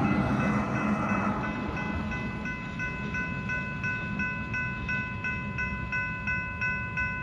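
Railway level crossing warning bell ringing about three strokes a second, over the low rumble of a train fading away.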